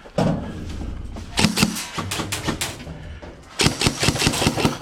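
Airsoft guns firing two rapid full-auto bursts, about a second each, one near the middle and one near the end, with sharp clattering shots at roughly ten a second.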